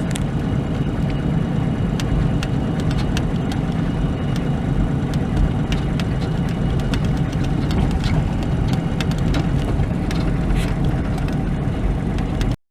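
Vehicle driving along, heard from inside the cab: a steady low engine and road noise with small rattles and clicks. It cuts off abruptly near the end.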